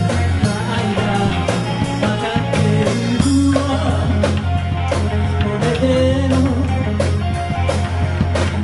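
Live rock band playing: a woman singing into a microphone over electric guitars, bass and a steady drum beat.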